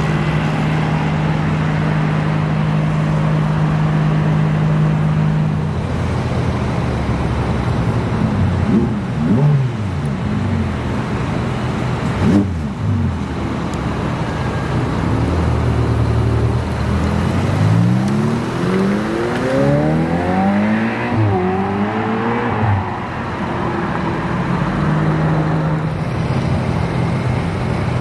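Sports car engines at an expressway exit: a steady idle for the first few seconds, then brief revs, a sharp pop about twelve seconds in, and later a car accelerating hard, its engine note climbing in several steps as it shifts up through the gears, before a steady engine hum returns near the end.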